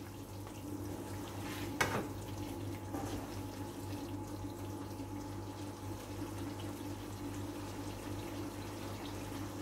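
A plastic spatula stirring a wet chicken, potato and capsicum curry in a non-stick wok, with one sharp knock of the spatula against the pan about two seconds in and a lighter one a second later, over a steady low hum.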